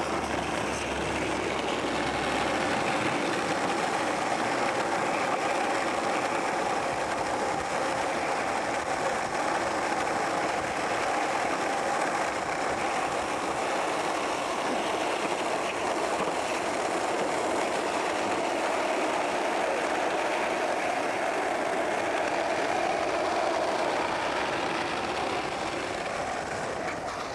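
Skateboard wheels rolling over asphalt at speed: a steady, unbroken rolling rumble that eases a little near the end.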